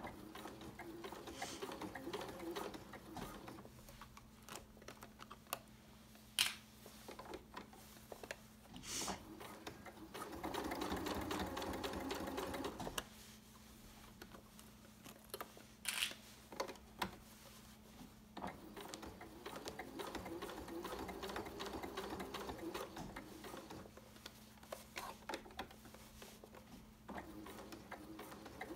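Domestic sewing machine top-stitching slowly through several layers of fabric and a zipper, running in short stretches of a few seconds with pauses between. A few sharp clicks fall in the pauses.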